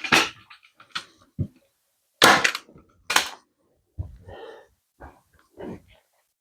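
Handling noises from the boat seat cushion and its vinyl cover being worked and turned over: a series of short knocks, thumps and rustles, the sharpest about two seconds in.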